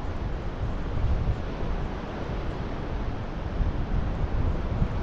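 Wind buffeting the microphone in uneven gusts, over a steady rushing noise.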